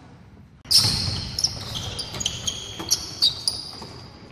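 A basketball bouncing on a hardwood gym floor with high-pitched sneaker squeaks. It starts suddenly under a second in, after a quiet moment, with knocks every half second or so.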